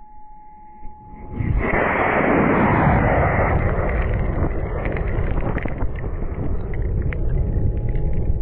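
High-power rocket motor igniting close up, about a second in, with a sudden loud rush. It is strongest for the first couple of seconds, then settles into a steady rushing noise with scattered crackles as exhaust and kicked-up dust blast the pad.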